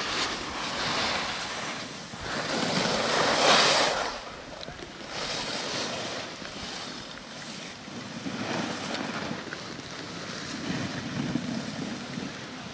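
Skis and snowboards scraping and hissing over packed snow as skiers pass close by, in rushing swells that come and go; the loudest pass is about two to four seconds in.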